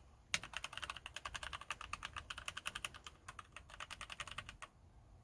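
Fast typing on a mechanical keyboard with Gateron Yellow linear switches, lubed with Super Lube spray. It is a quick, even stream of keystrokes with a short pause partway through. The typing stops about a second before the end.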